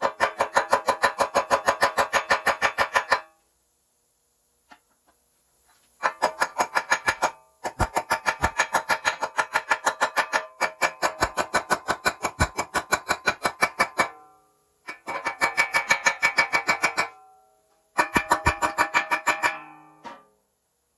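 Pulsed welding arc on aluminum, buzzing and throbbing about five or six times a second, struck in six runs of one to four seconds with short stops between beads. Playback at double speed raises its pitch and pulse rate.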